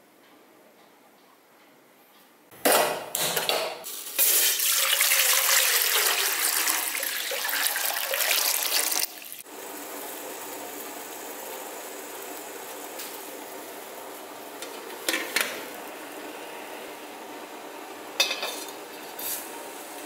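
Water running into a stainless steel pot for about five seconds, then cutting off suddenly. A quieter steady hiss follows, broken by a few short metallic clinks of steel pot and lid near the end.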